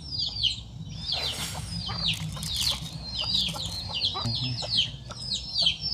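Chicks peeping continuously: many short, high calls, each falling in pitch, overlapping several times a second. Faint knife scrapes and clicks on bread come with them.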